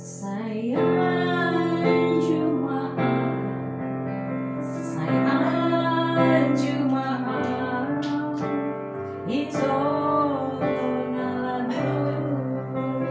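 A woman singing along to a digital piano accompaniment, the piano holding chords under her voice.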